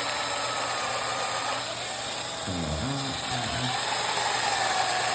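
Electric drill running, boring a dowel hole into wood. Its motor whine dips in pitch, then rises again about halfway through. A short low vocal murmur comes about two and a half seconds in.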